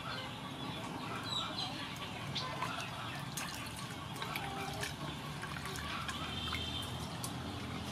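Wooden spoon stirring a watery jelly-powder mixture in an aluminium pot: liquid swishing, with scattered light clicks of the spoon.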